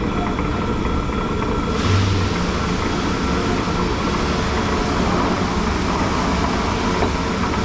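Steady mechanical running noise with a faint steady hum through it; it gets brighter and hissier about two seconds in, where a short low thump is heard.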